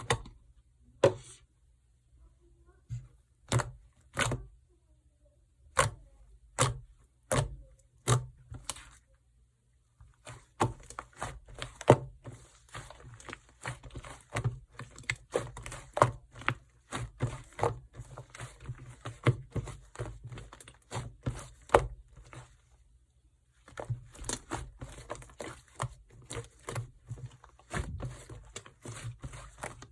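Soft, fluffy slime being poked and pressed, its trapped air popping. At first come single sharp pops spaced about a second apart; after about ten seconds they give way to fast, steady crackling with a short break near the end.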